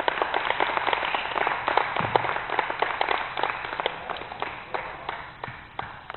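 Audience applauding, a dense patter of hand claps that thins out and dies away near the end.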